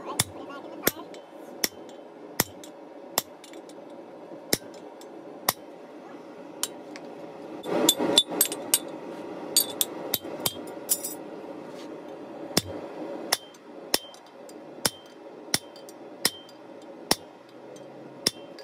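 Hammer striking steel on an anvil: sharp, separate metallic blows about every second, with a quicker cluster of strikes around eight seconds in, over a steady low hum.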